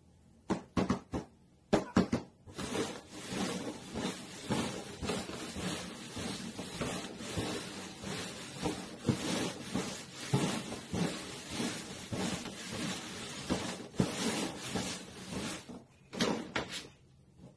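Paper cups knocked down onto a cardboard box top a few times, then slid and shuffled across it in a long, busy run of scraping and tapping, with a couple more sharp knocks near the end.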